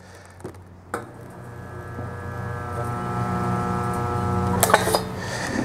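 Chicago Electric stud welder humming steadily with its trigger held, welding a copper-plated dent-pulling stud onto sheet steel. It switches on with a click about a second in and grows louder over a few seconds, with a short crackle near the end.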